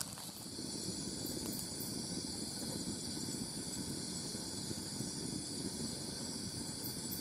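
A steady chorus of crickets and other insects, a constant high-pitched drone with several bands of trilling, over a low even noise.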